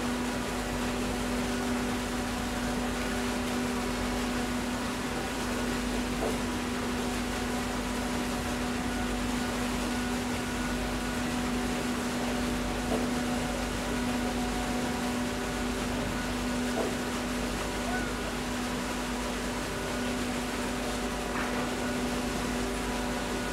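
Steady machinery hum of a large river passenger motor ship passing close by: engines and ventilation give one constant low tone with fainter higher tones over a wash of noise.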